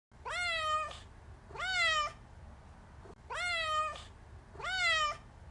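Domestic cat meowing four times, evenly spaced about a second and a half apart. Each meow lasts under a second and rises, then falls in pitch. A low steady hum runs underneath.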